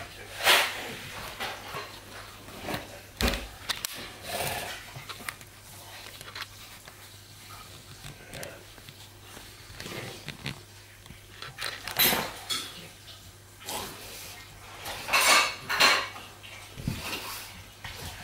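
Two young Cane Corsos play-wrestling on a couch: irregular scuffling and mouthing noises broken by sharp clattering knocks, with the loudest bursts about halfway through and again two thirds of the way in.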